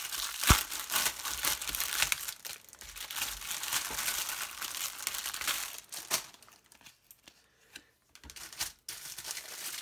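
Clear plastic wrapping on a magazine crinkling and tearing as it is pulled open by hand, with one sharp snap about half a second in. There is a quiet gap of about two seconds near the end.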